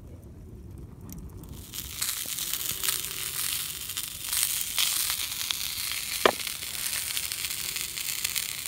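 Sausages sizzling in a cast iron skillet over a wood fire, starting about two seconds in as a steady hiss full of small crackling pops. A single sharp click about six seconds in.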